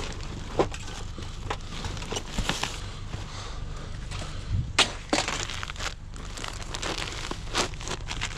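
Rummaging through construction debris: cardboard and plastic rustling and crinkling, broken by sharp knocks and clatters as sheet-metal ductwork pieces are handled. The loudest knock comes about five seconds in.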